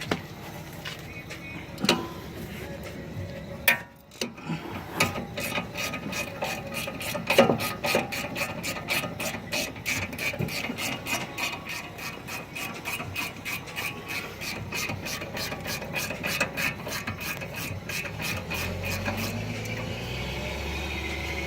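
Hand ratchet with a 16 mm socket clicking steadily, about three clicks a second, as the brake caliper bracket bolts are backed out. A few sharp metal knocks come first, from the socket and tools being fitted.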